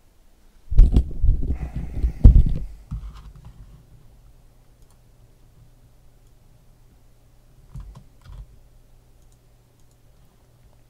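A quick run of loud clicks and knocks from typing on a computer keyboard on a desk, during the first three seconds or so, then two faint clicks about eight seconds in.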